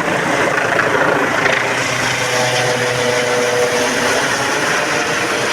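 Eurocopter EC135 P2+ helicopter's twin turbines and rotor running at take-off power, a steady loud rush. A fainter steady tone comes through for a second or two midway.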